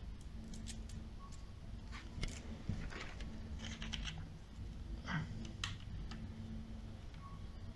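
Light plastic clicks and handling sounds as the Samsung Galaxy J4's removable plastic back cover is pressed and snapped into place over the battery. The clicks are scattered and irregular, over a faint steady low hum.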